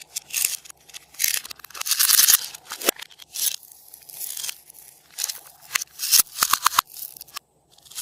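Glossy slime being handled and mixed by hand, giving irregular bursts of sticky tearing and crackling sounds with quick runs of clicky pops.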